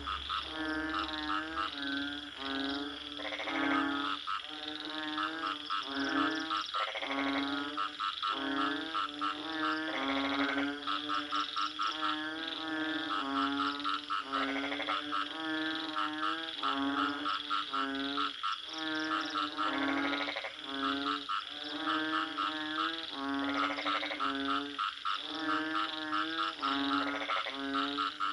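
Frogs croaking: repeated pulsed, rattling calls, roughly one a second, over a steady high-pitched tone.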